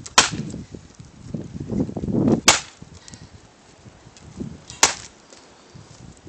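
Axe chopping wood: three sharp cracks, one every two seconds or so, as the blade strikes a log on a chopping block.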